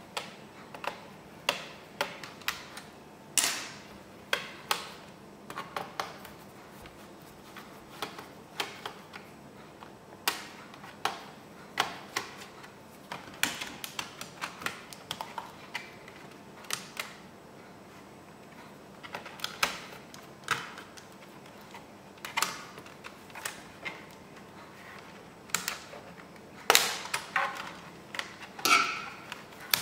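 Irregular small clicks and taps of a screwdriver working the screws and plastic underside of an HP Pavilion dv6000 laptop, with a few louder plastic clacks near the end as the access cover is handled.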